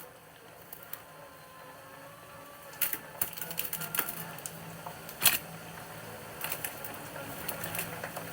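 Scattered sharp clicks and light clatter of food containers and utensils being handled while lunch plates are packed, the sharpest click about five seconds in, over a steady low hum.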